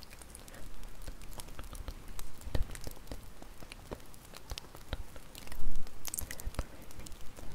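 Wood fire crackling, with irregular snaps and pops of burning wood and a louder cluster of pops about three quarters of the way through.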